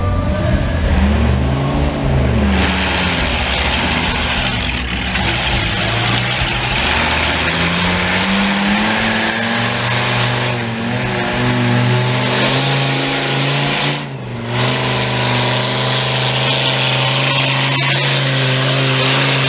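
Old farm tractor's engine revving at the start line, then pulling a weight-transfer sled under heavy load. The engine note climbs about seven seconds in and then holds steady at high revs, dipping briefly once near the middle.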